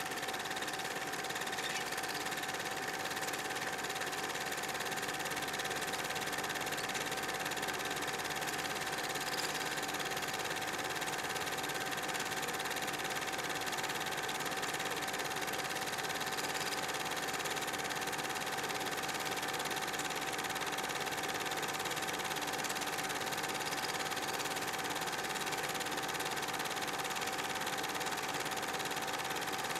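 Steady mechanical whir with a constant hum tone, unchanging throughout.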